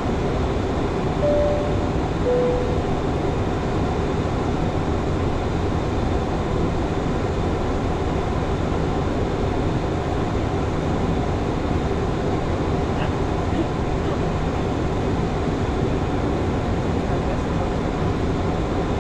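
Steady rumble and rush of airflow and engines on a Boeing 737-800 flight deck in flight. About a second in, a two-note chime sounds, the first note higher and the second lower.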